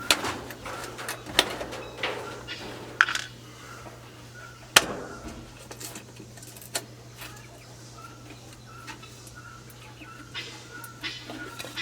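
Scattered metallic clicks and knocks from handling tools and parts during an oil change, the loudest about five seconds in, over a steady low hum, with faint short high chirps repeating in the background.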